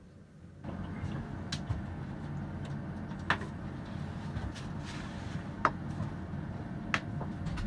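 Steady low rumble of a tour bus that comes on abruptly about half a second in, with four sharp clicks or knocks spread through it.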